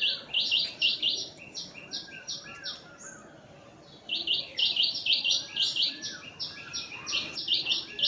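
Birds chirping: quick series of short, high notes at about three or four a second, with a pause of about a second near the middle before the chirping starts again.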